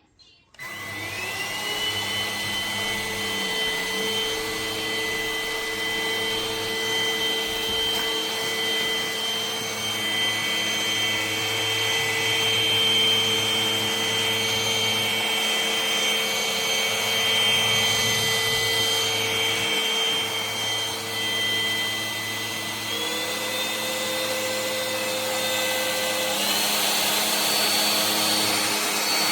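Cordless stick vacuum cleaner switched on, its motor spinning up with a rising whine, then running steadily with a high whine over the rush of suction. The whine steps up in pitch twice near the end.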